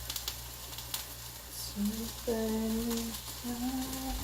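Vegetables and tempeh sizzling in a frying pan with faint crackles. From about halfway through, a woman sings or hums three held notes over it.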